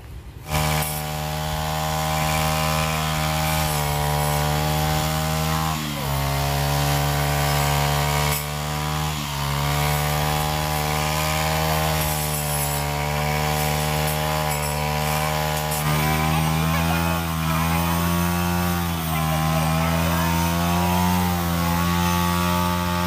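Handheld brush cutter (string trimmer) engine running steadily as it cuts long grass. Its pitch sags briefly a few times as the line bites into the grass. It starts about half a second in.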